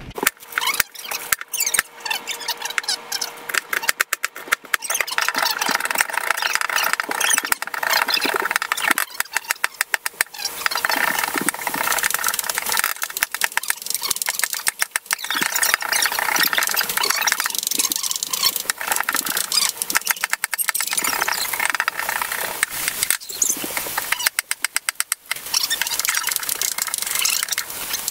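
Kitchen knife chopping sweet peppers on a wooden cutting board, in quick runs of strikes, over a continuous hiss.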